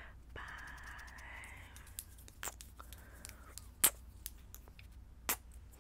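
Long acrylic fingernails clicking and tapping close to the microphone: scattered sharp clicks, three of them louder than the rest, after a soft hiss in the first couple of seconds.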